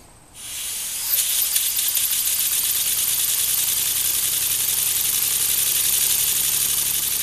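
Model three-cylinder oscillating steam engine starting up and running fast: a rapid, even hissing exhaust beat that builds over the first second and then holds steady.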